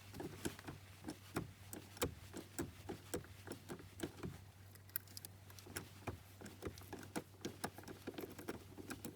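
Light metallic clicks and taps, a couple a second at an irregular pace, as a Torx T50 tool works the tight steering-wheel centre bolt loose, over a faint steady low hum.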